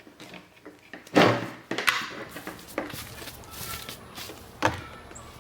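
A few knocks and clunks from handling hard equipment. The loudest is a thud about a second in, with smaller knocks after it and a sharp one near the end.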